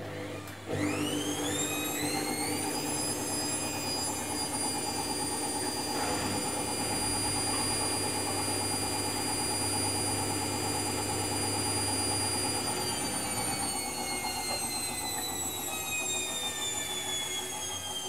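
Candy washing machine's motor spinning the drum up during its Smart Check Up diagnostic test: a whine that climbs quickly about a second in, holds steady at high speed, then slowly falls over the last few seconds as the drum slows down.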